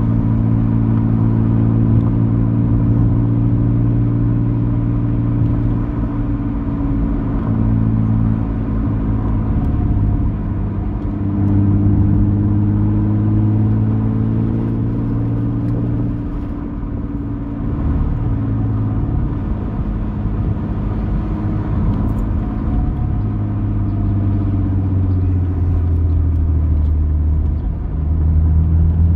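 Car engine and tyre noise heard from inside the cabin while driving, a steady low drone whose engine note rises and falls a few times as the speed changes.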